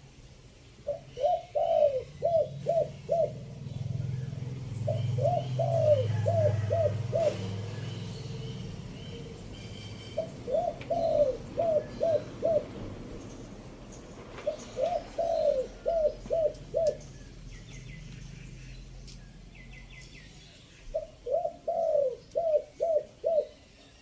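Spotted dove cooing: five bouts, each a quick run of about six short coos, spaced four to six seconds apart. Faint chirps of other small birds and a low rumble sit in the background.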